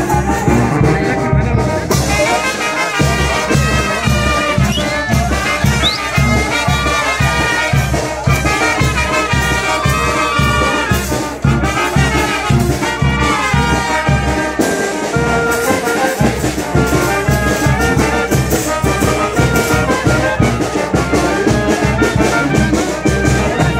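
Brass band playing a lively tune over a steady drum beat.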